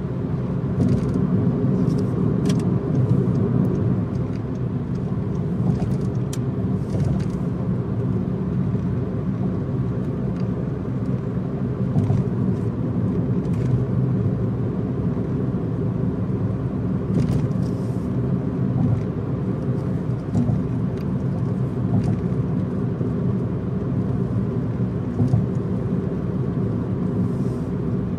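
A car driving steadily along an expressway: a continuous low rumble of tyre and engine noise, with a few faint brief ticks.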